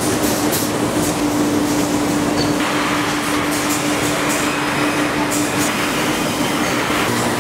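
Factory machinery din: a steady hum under continuous mechanical clatter with scattered clicks, growing brighter about two and a half seconds in.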